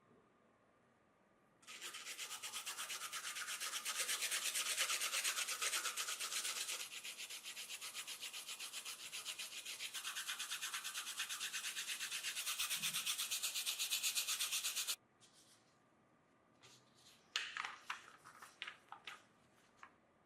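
Fast, even scratching or rubbing against a surface that goes on for about thirteen seconds, then stops suddenly. A few short scrapes and taps follow near the end.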